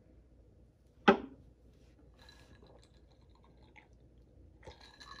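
Someone drinking a shot of tequila and then sipping a chaser: mostly quiet swallowing, with one short, sharp, loud sound about a second in and faint small sounds afterward.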